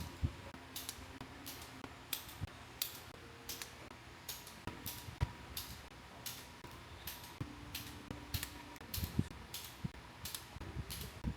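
CNC rotary table (fourth axis) mechanism ticking at an even pace, about three sharp, high-pitched clicks every two seconds. A faint motor hum comes and goes underneath.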